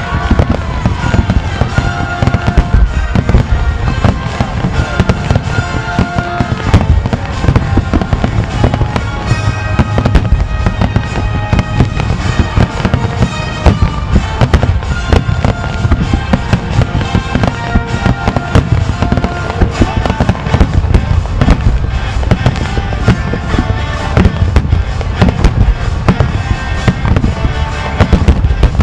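A dense, unbroken barrage of aerial firework shells bursting over the sea, with constant booms and crackles during the grand finale. Music from the show's loudspeakers plays underneath.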